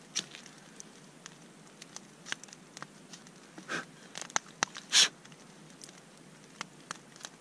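Knife blade shaving a small fork from a frozen Siberian cedar knot: scattered short scraping cuts and light clicks, the loudest stroke about five seconds in.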